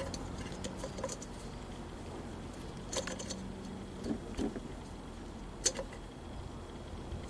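Scattered light metallic clicks and clinks of tools and small parts being handled, a few separate taps over several seconds, the loudest about two-thirds of the way through.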